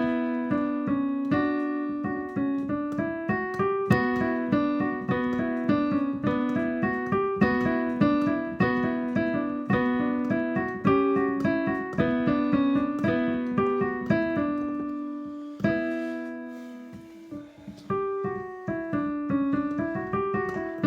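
Piano music: a steady run of struck notes repeating over a held low note. It thins out for a couple of seconds about three-quarters of the way through, then picks up again.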